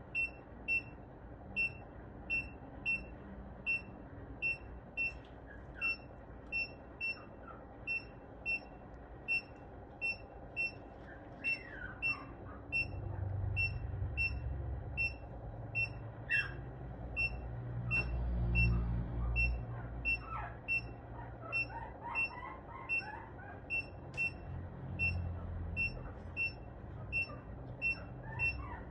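Veterinary patient monitor beeping steadily at a high pitch, about two beeps a second, at the pace of the anaesthetised cat's heartbeat.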